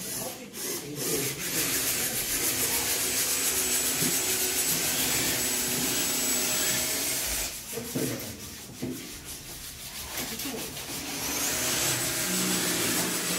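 Wooden cutting boards being power-sanded: a steady abrasive rubbing with a high motor whine, which drops away for a few seconds past the middle and starts again near the end.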